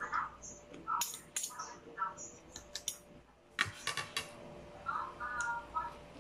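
Metal spoon and fork clinking against a ceramic soup bowl while eating: a run of sharp clinks, bunched around the middle, with short pitched sounds in between.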